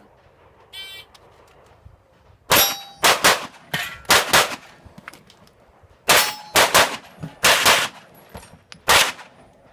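Shot timer start beep, then a handgun firing rapidly, about a dozen shots in quick pairs and groups with a short pause in the middle, with steel targets clanging where hit.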